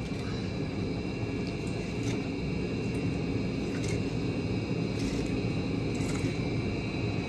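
A steady low rumble throughout, with a few faint clicks and scrapes as a fillet knife cuts through a swordfish.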